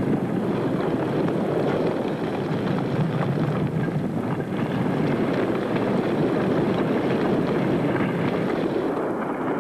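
Lava fountains of the Tolbachik fissure eruption: a steady, dense rushing noise, deep-toned and unbroken.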